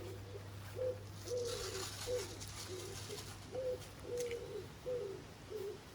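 Pigeon cooing: a steady run of short, low coos, about two a second, over a constant low hum.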